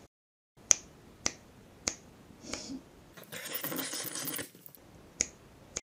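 A few sharp, short clicks, roughly half a second apart, with a burst of hissing noise lasting about a second in the middle and two more clicks near the end.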